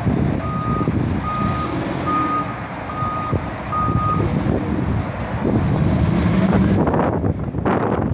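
Doosan propane forklift's backup alarm beeping five times at one steady pitch, about one beep every 0.8 seconds, over its idling engine. The beeping stops about four seconds in, and the engine gets louder around six seconds in as the truck drives on.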